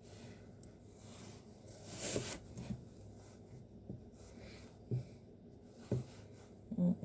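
Chef's knife cutting carrot into diamond-shaped lozenges on a cutting board: about six separate knocks of the blade against the board, irregularly spaced, the loudest near the end.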